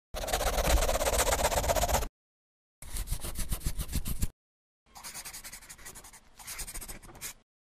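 Pen scribbling sound effect: three bursts of fast scratchy strokes, each one to two and a half seconds long, with dead silence between them.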